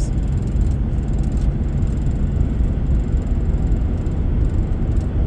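Steady low rumble of a moving car heard from inside the cabin: tyre and engine noise while driving.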